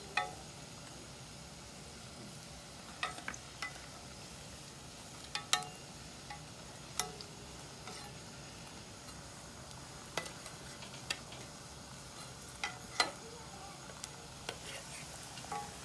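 Green plantain cups frying in oil in a pan, a faint steady sizzle, with a metal slotted spoon clinking sharply against the pan about a dozen times at irregular intervals as they are turned.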